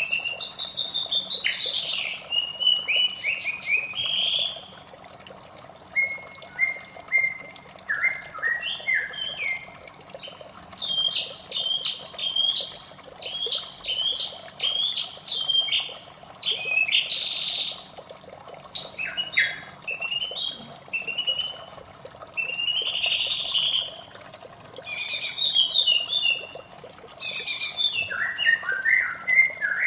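White-rumped shama singing a long, varied run of rich whistled phrases with short pauses, over a steady background of running water.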